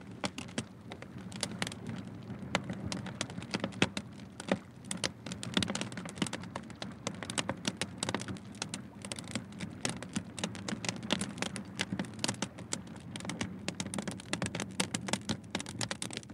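A fire burning, with dense, irregular crackles and pops over a steady low rumble.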